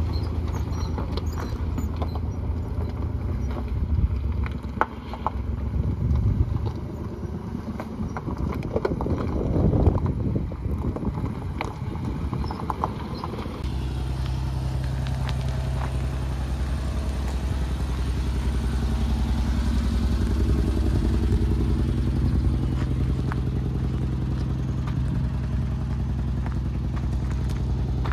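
Toyota Sienna's 3.5-litre V6 idling with a steady low hum, which grows steadier and stronger about halfway through. Footsteps crunch on gravel in the first half.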